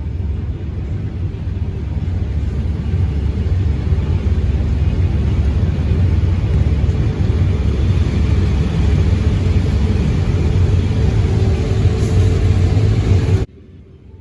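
Heavy farm vehicle engine running with a loud, steady rumble that grows gradually louder, then cuts off abruptly near the end.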